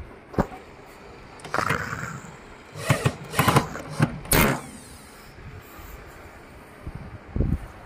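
Corded electric drill run in short bursts, driving screws into a speaker cabinet's metal mesh grille, with metallic clatter from the grille. The bursts bunch together in the first half, and one more comes near the end.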